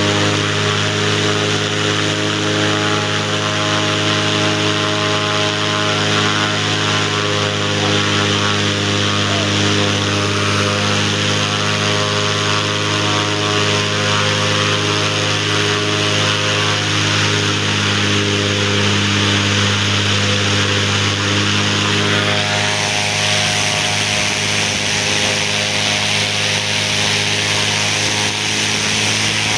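Cessna 206's six-cylinder piston engine and propeller running at steady high run-up power, the pitch having just risen as the throttle came up. About 22 seconds in, the clear engine note gives way to a rougher, hissier sound.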